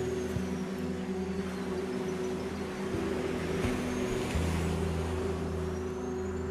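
Ambient electronic lounge music with sustained synth chords and slow high sweeps, mixed with the wash of sea waves that swells about halfway through.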